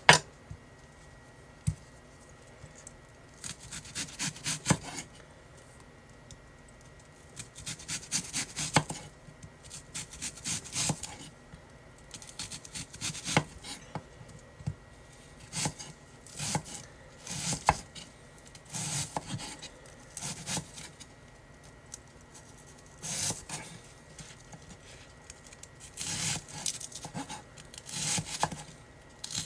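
Chef's knife slicing a peeled onion into rings on a wooden cutting board: crisp cuts through the onion, each ending in a knock of the blade on the wood, in irregular runs of several strokes with short pauses between. A single sharp knock comes right at the start.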